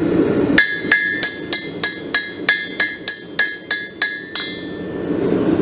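Hand hammer striking a red-hot 5160 steel knife blade on a 200 lb anvil: about a dozen steady blows, roughly three a second, each with a bright ring, stopping about four and a half seconds in. The blows are evening out the blade's bevels.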